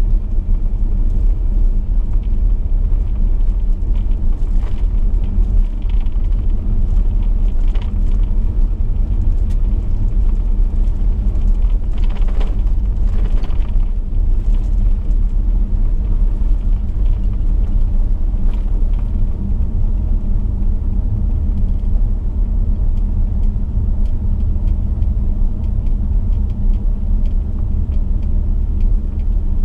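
Chevrolet V8 car driving steadily along a gravel road: a continuous low rumble of engine and tyres, with a brief louder hiss about twelve seconds in.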